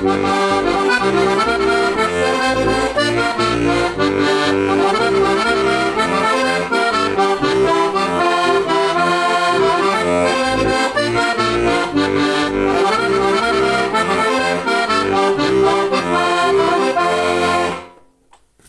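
Heligonka, a four-voice Slovak diatonic button accordion in C/F with hand-made brass reeds, playing a folk tune in chords and melody over a steady rhythmic bass. The music stops abruptly about a second before the end.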